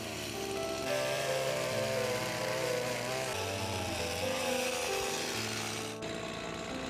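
Stihl chainsaw running and cutting through a log, over background music. The saw's hiss cuts off abruptly about six seconds in, leaving the music.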